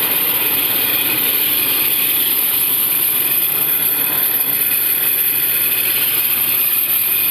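Range Rover Sport engine idling steadily with a small grinding 'charchar' noise from the engine's belt drive. The mechanic traces the noise to a pulley or tensioner bearing rather than the belt.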